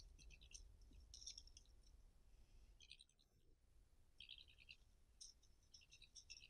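Faint, scattered clicking and scratching from a European badger moving about at its sett entrance in snow, in short bursts with a lull in the middle.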